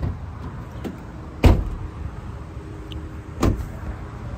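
Pickup truck doors slamming shut: two heavy thuds about two seconds apart, the first the louder, over a steady low rumble.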